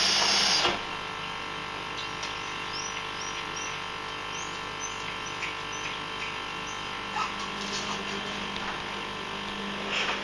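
A washing machine's loud running noise cuts off under a second in, leaving a low steady hum. Over it a small dog cries in short, thin, high-pitched whimpers, several in quick succession and then a few scattered ones.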